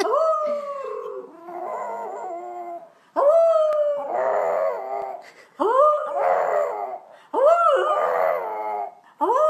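French bulldog howling with its head thrown back: four long howls in a row, each jumping up in pitch and then sliding down into a wavering, broken tail, with short breaths between them.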